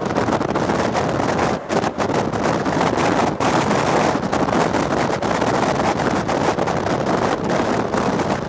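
Wind buffeting the microphone from a moving safari jeep, a dense steady rush with brief gusty dips, over the jeep's running and road noise.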